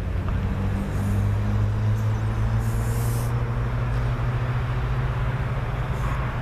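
Steady low engine drone of distant diesel locomotives on an approaching freight train, holding an even pitch.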